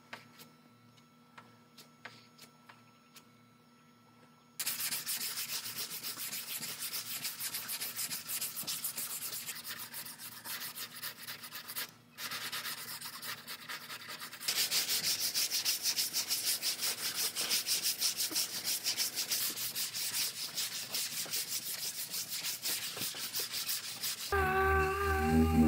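Hand sanding of body filler on a car door with a sanding block: quick rasping strokes of sandpaper start about four seconds in, break off briefly about halfway, and carry on. Music comes in near the end.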